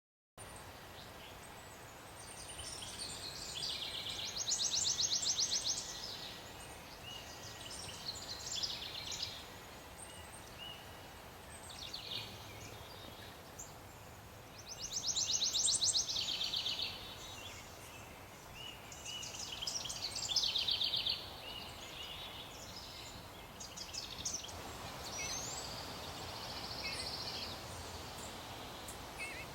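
Songbirds calling outdoors: several rapid, high trills repeated a few seconds apart, with softer chirps between them.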